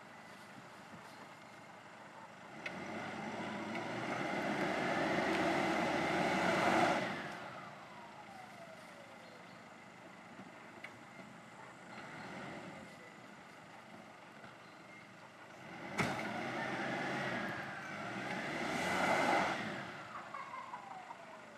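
Pickup truck engine revved hard twice, each time rising in pitch and then dropping away, while its wheels spin on grass. A sharp knock comes just as the second rev starts.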